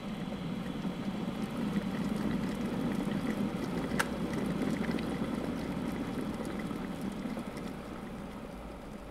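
Electric kettle heating up to the boil: a rushing rumble with faint crackling that builds, peaks midway and then eases off. A single sharp click comes about four seconds in.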